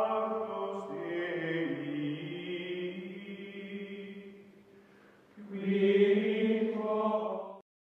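Outro music of long held, choir-like voices in a chant. It dies away to a hush about five seconds in, swells again, and cuts off abruptly near the end.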